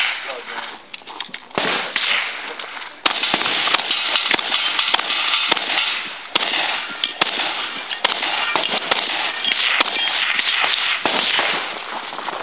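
Shotgun fired many times in quick succession, sharp shots irregularly spaced. A steady rushing noise runs behind the shots from about three seconds in.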